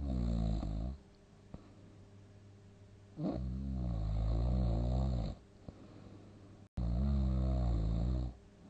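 Loud snoring: three snores, the first about a second long, the next two about two seconds and a second and a half, each a couple of seconds apart.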